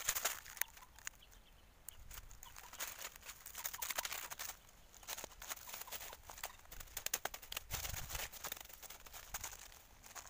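Dry fallen leaves and twigs crunching and crackling in quick irregular bursts under a man's feet and hands as he crouches and works on the forest floor.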